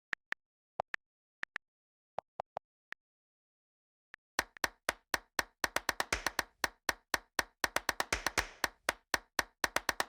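Electronic intro music: a few sparse clap-like clicks, then a fast percussive drum-machine beat from about four seconds in.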